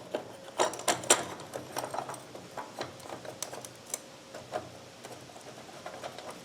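Socket ratchet clicking in short irregular runs as a bolt is driven in, with light taps of metal tools; the bolt is threading in easily.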